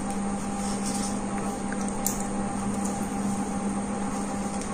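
Steady room hum with a constant low tone and an even background hiss, and a faint tick about two seconds in.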